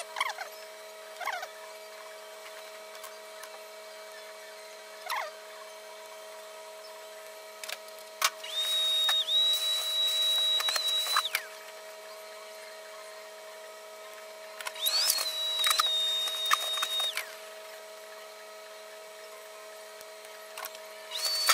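A small electric cutting tool runs twice, each time for about three seconds, with a steady high whine that rises briefly as it starts up over a rasping hiss. A few short scratching strokes come near the start.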